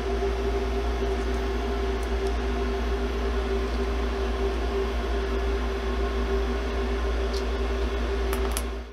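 Steady hum of a powered-up CNC milling machine, a held mechanical drone with a few steady tones over a low hum. A couple of faint clicks come near the end.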